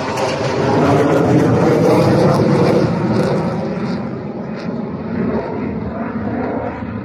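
Four KAI T-50B jet trainers passing overhead in formation, their jet engine noise loudest in the first few seconds and then fading as they fly away.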